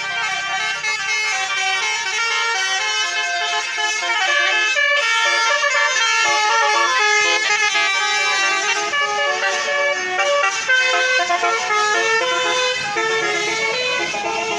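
Indonesian telolet bus musical horns (Basuri horns) playing their stepping melodic tunes without pause, several horns sounding over one another at once.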